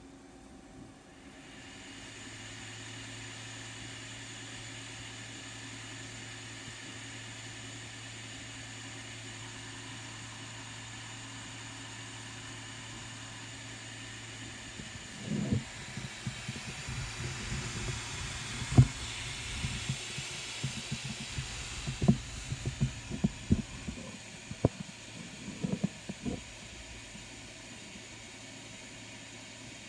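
3D printer running with a steady hum and hiss, which starts about a second and a half in. About halfway through, a string of irregular knocks and clicks begins, one sharp knock louder than the rest, and stops a few seconds before the end.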